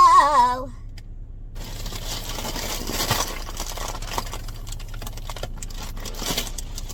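A high, helium-raised voice holds a note and then slides down and stops just after the start. After a short pause comes several seconds of soft rustling, hissing noise.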